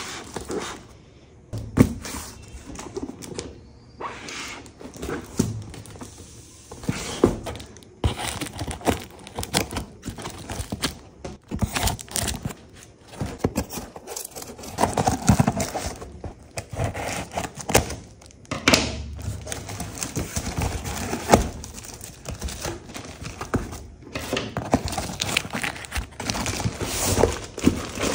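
Handling noises from unboxing a backpack: packaging crinkling and rustling, with many scattered clicks and thumps.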